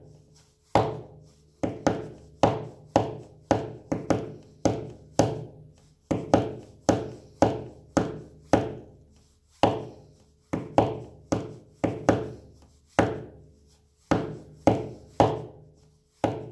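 Hand tapping out the rhythm of a 2/4 pipe march on a hard surface: a long run of sharp knocks, each with a short ringing decay, spaced unevenly to follow the tune's long and short notes.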